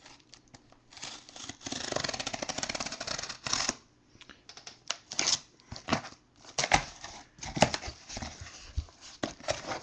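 A blade slitting the packing tape on a cardboard shipping case, a quick scratchy run lasting about two and a half seconds. Then the cardboard flaps are pulled open, with rustling and a few knocks.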